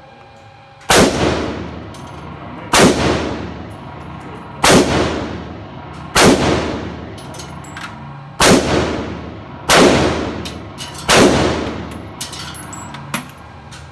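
AR-15 rifle fired in slow semi-automatic, seven single shots about one and a half to two seconds apart, each ringing out in an indoor range. A few small clicks follow near the end.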